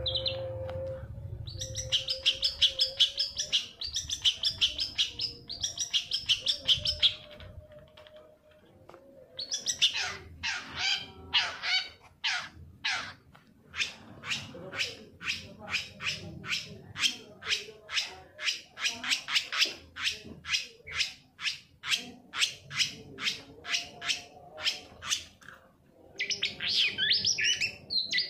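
Long-tailed shrike singing: a fast chattering run of high notes, then a long series of sharp repeated calls about two a second, breaking into rapid, varied warbling near the end.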